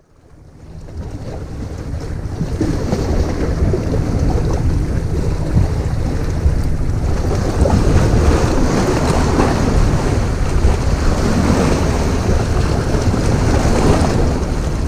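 Wind buffeting the microphone over sea waves washing against the rocks, fading in just after the start.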